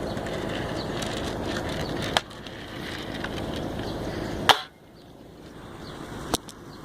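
BB gun fired three times, roughly two seconds apart, each shot a sharp crack, with the second the loudest. A rushing noise runs under the shots and drops away sharply right after the second one.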